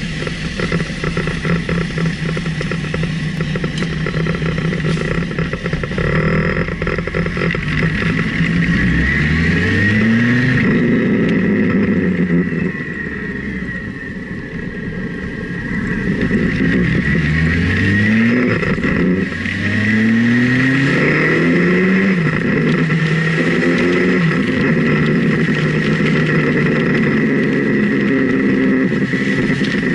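Motorcycle engine pulling away and accelerating up through the gears: after a slow roll, the engine note rises several times and drops back at each gear change, over a steady rush of wind and road noise.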